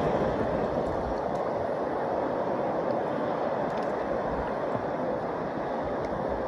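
Steady rushing of ocean surf.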